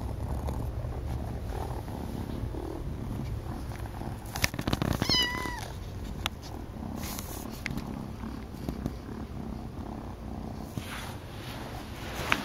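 Domestic cat purring loudly and steadily, a deep continuous rumble that matches the highest purring setting of most cats. About five seconds in there is a brief, high-pitched chirp.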